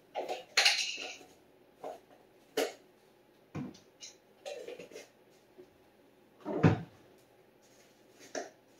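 Kitchen clatter from a cupboard door and items handled on the counter: a string of separate knocks and clunks, the loudest about two-thirds of the way in.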